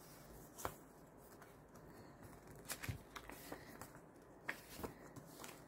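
Pages of a picture book being turned and handled: a few soft paper taps and rustles over a faint hiss.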